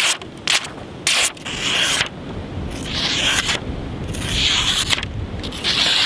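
Buck 110 folding knife's blade slicing through a hand-held sheet of paper: a couple of short crisp rustles, then four drawn-out rasping cuts a second or so apart. The clean slicing shows the edge is still razor sharp after heavy whittling.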